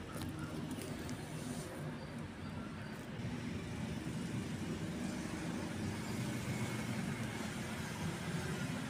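Steady low rumble of road traffic, with a few faint ticks about two to three seconds in.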